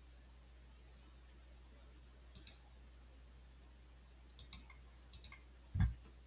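Faint, sparse computer mouse clicks: one about two seconds in, two a little after four seconds, another near five seconds, then a louder low thump shortly before the end, over a low steady hum.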